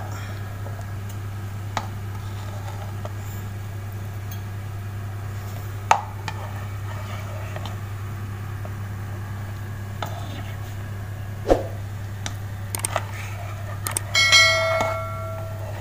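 A ladle knocking and scraping now and then against a pot while foam is skimmed off boiling meat, over a steady low hum. Near the end a click and a bell-like ding ring out for about a second, in the manner of a subscribe-button sound effect.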